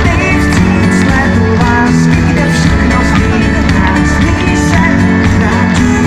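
Pop-rock band playing live, with electric guitars, bass and drums in an instrumental passage between sung lines. The sound is loud and dense, picked up from within the audience.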